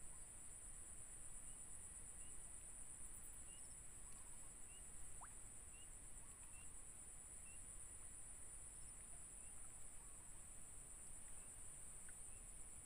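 Faint, steady high-pitched insect buzz from the surrounding grass, with soft short chirps repeating under once a second and a single quick rising squeak about five seconds in.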